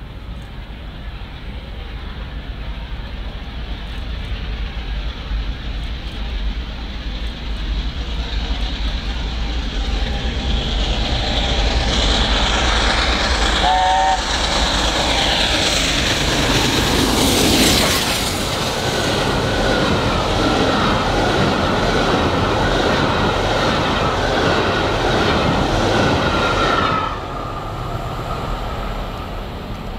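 LNER A4 Pacific steam locomotive with its train of coaches approaching and passing close by, the sound of its exhaust and wheels building up. It gives a brief three-chime whistle about halfway. The coaches then rattle past with a steady high ringing from the wheels that stops suddenly as the end of the train goes by, about three seconds before the end.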